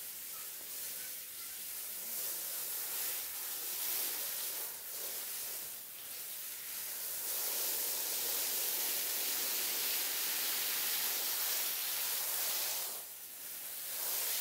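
Water spraying from a hose's shower-head watering wand onto loose soil: a steady hiss that grows louder about halfway through and dips briefly near the end.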